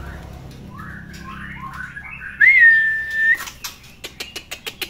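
Young male white-rumped shama calling in its cage: a few short chirps, then one loud, steady whistled note about a second long that swoops up into its pitch. A quick run of sharp ticks follows near the end.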